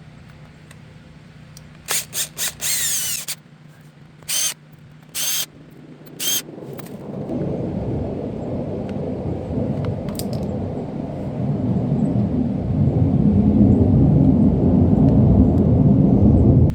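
A cordless drill-driver run in short bursts, several quick ones and then three single spins, backing screws out of a welding gun's handle. After that a low rumbling noise builds up and grows louder, then cuts off abruptly.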